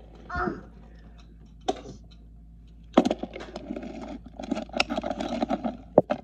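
Toys clattering and rattling for about three seconds in the second half, ending in a sharp knock, with a single click earlier.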